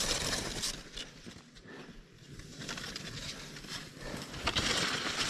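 Alpine skis sliding and scraping over snow, a rough hiss that rises and falls with the turns and grows louder about four and a half seconds in.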